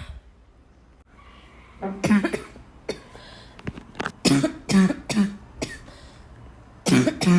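A person coughing in repeated bouts: a breath drawn in about a second in, then a run of harsh, voiced coughs, several more around the middle, and another bout near the end.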